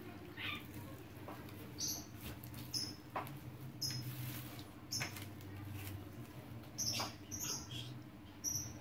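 Hand work on a wire-and-disc fruit picker: the wire and strips being bent and tied onto a round black plastic disc, giving scattered short clicks, scrapes and squeaks over a low steady hum.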